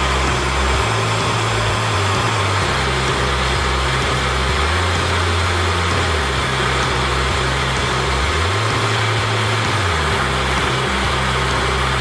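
Gas blowtorch flame hissing steadily as it heats a twisted steel rod to red heat for bending.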